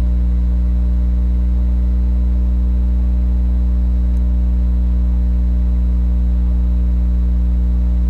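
Steady electrical mains hum: a low, even buzz with a row of overtones that stays the same throughout.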